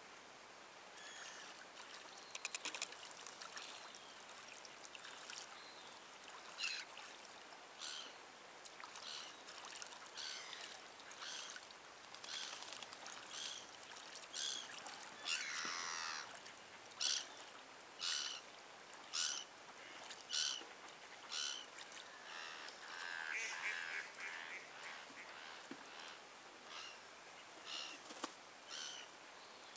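A mallard drake bathing, splashing in the water, with short honking waterbird calls repeating about once a second, loudest around the middle.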